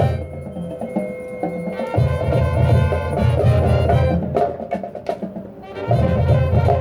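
Marching band playing, with brass and wind chords over drums and sharp percussion strikes, closing on a loud full chord that cuts off near the end.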